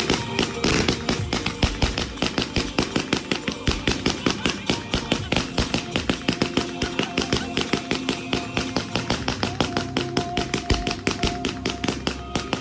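A low-noise firework cake firing a rapid, even string of shots, about six or seven a second, with background music underneath.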